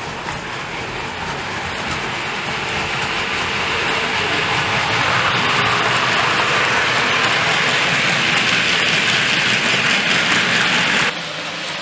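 OO gauge model goods train running past, its wheels and motor making a continuous rattling running noise on the track. The noise grows louder over several seconds, then cuts off suddenly near the end.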